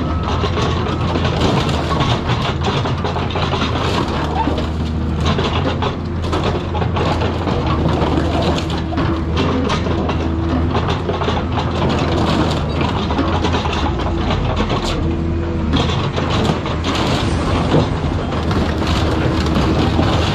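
Heavy excavator's diesel engine running steadily while its attachment crunches and tears apart a car's metal body, with frequent irregular clanks and scrapes.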